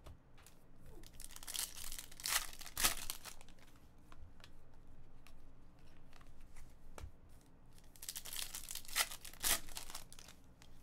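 Plastic trading card pack wrappers being torn open and crinkled, in two bouts of rustling, about two seconds in and again around nine seconds, with a few light clicks between.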